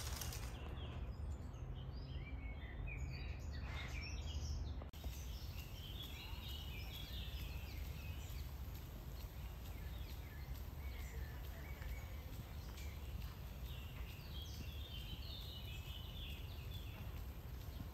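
Outdoor park ambience: birds chirping in scattered short bursts over a steady low rumble.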